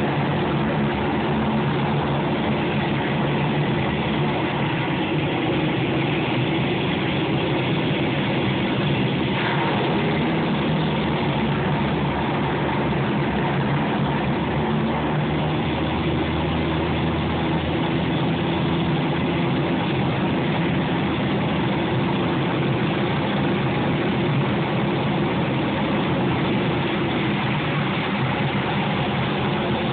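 Aircraft engines running with a steady drone, heard from inside the passenger cabin while the plane taxis after landing.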